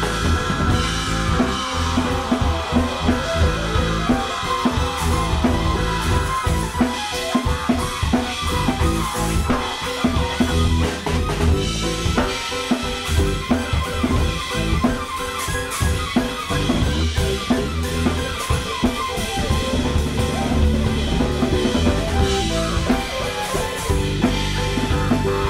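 Live band music: a drum kit playing bass-drum and snare hits over a deep bass line and keyboards. In the first few seconds, several falling pitch sweeps glide down through the mix.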